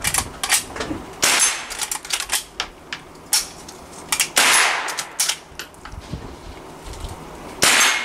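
.22 rifle firing repeatedly at steel targets: about eight sharp shots, roughly one a second, with smaller clicks and the clang of steel between them.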